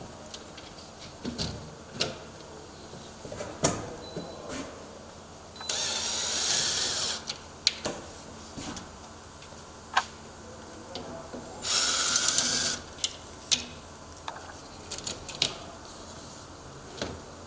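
Scattered clicks, taps and knocks of metal door parts being handled, with two short whirring, rasping bursts about six and twelve seconds in, the first about a second and a half long and the second about a second.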